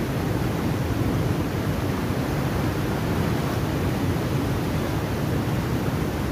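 Turbulent water rushing out of a dam's sluice gates and churning past a concrete wall: a steady, unbroken rush, deepest and strongest in the low range.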